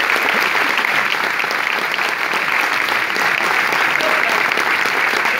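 Audience and cast applauding together: a dense, steady clatter of many hands clapping, loud throughout.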